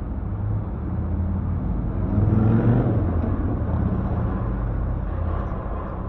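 City street traffic: a motor vehicle's engine running close by with a low rumble, swelling louder about two to three seconds in.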